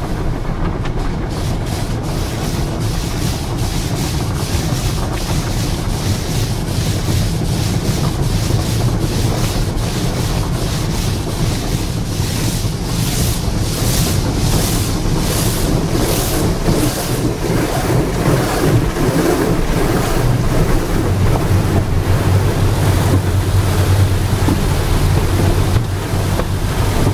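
Automatic car wash heard from inside the car: water spraying and wash brushes or cloths sweeping over the windshield and body in a loud, steady rush. Around the middle it swishes in a rhythm of about two beats a second, and a steady low hum comes in after about twenty seconds.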